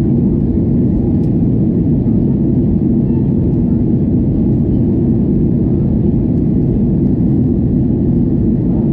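Steady cabin noise of a GOL Boeing 737 at speed: an even low rumble of jet engines and rushing air that holds constant throughout.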